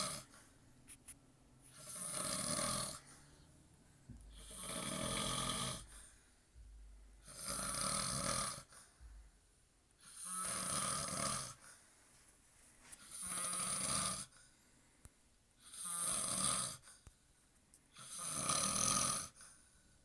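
A man snoring in deep sleep: one snore about every two and a half seconds, each lasting about a second, eight in all.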